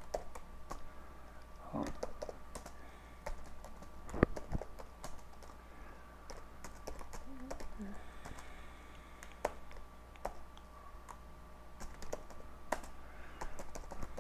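Typing on a computer keyboard: uneven key clicks, with one sharper keystroke about four seconds in.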